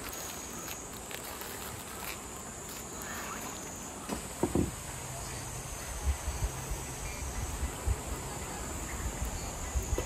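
Insects chirring steadily in a high, even band. From about halfway, irregular low thumps come in underneath.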